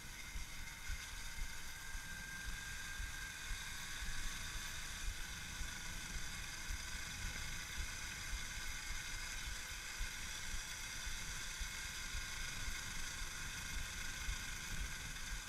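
Electric Babetta moped's brushless Axi outrunner motor and its controller running at cruising speed, making a steady whine of several high tones. Wind rumbles and buffets the camera microphone underneath it.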